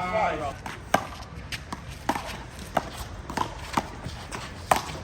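A one-wall handball rally: the small rubber ball is slapped by hand and smacks off the wall and pavement in a quick, uneven series of sharp cracks, about eight in five seconds. A short voice call sounds right at the start.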